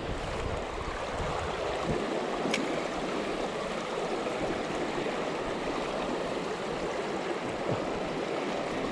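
Steady rushing of flowing river water, with a single faint short tick about two and a half seconds in.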